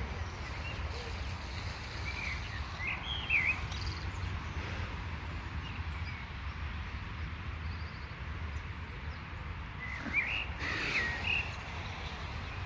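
Small birds chirping in two short bursts of quick rising and falling notes, about two seconds in and again about ten seconds in, over a steady low rumble.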